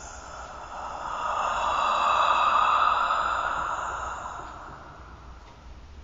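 Eerie whispered sound effect: a long breathy whisper without clear pitch that swells up about a second in, is loudest in the middle and fades away again.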